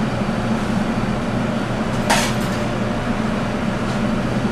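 Steady droning hum of kitchen ventilation, with one short knock about two seconds in.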